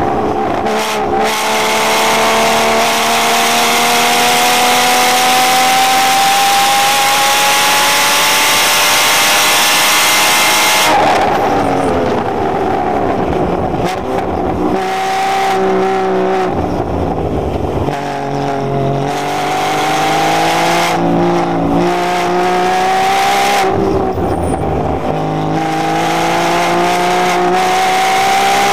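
Porsche engine heard from inside the cabin on a track lap: it pulls hard with the revs climbing steadily for about ten seconds, then the throttle comes off sharply and the revs drop and jump through a series of downshifts and shorter pulls, before climbing again under full throttle near the end. Wind and road noise rise with the speed.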